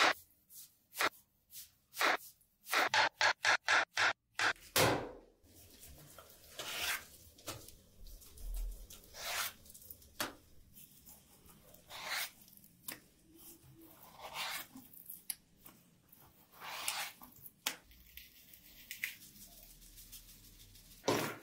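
Chef's knife slicing a red onion on a bamboo cutting board: a quick run of sharp chopping knocks on the board, speeding up to about four a second, which stops about four seconds in. After that come slower, softer knife strokes through raw chicken breast on the board, one every second or two.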